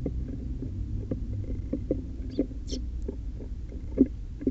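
Eurasian tree sparrows pecking and hopping on a hard surface: quick, irregular soft taps, with two brief high chirps about two and a half seconds in.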